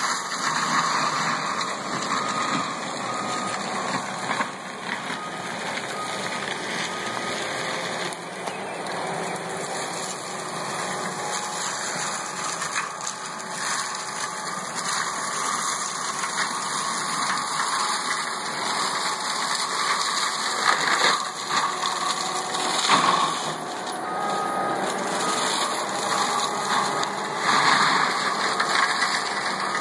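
Compact track loader running a forestry mulcher, its engine working under steady load while the spinning cutter head shreds buckthorn seedlings and brush. There are a few louder spikes of cutting about two-thirds of the way through and near the end.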